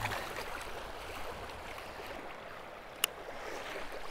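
Shallow water splashing and swirling at the shoreline as a released channel catfish swims off, then steady lapping water. A single sharp click about three seconds in.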